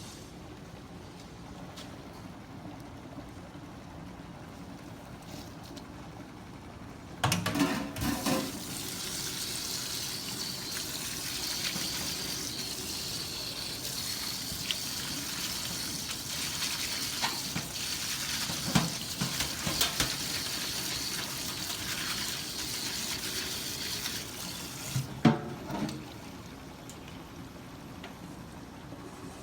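Water running steadily for about seventeen seconds, starting and stopping with a few clunks. A low steady hum is heard before and after it.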